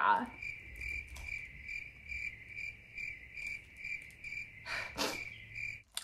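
Cricket chirping: a steady high trill that pulses two to three times a second and cuts off abruptly just before the end. There is a brief breathy noise about five seconds in.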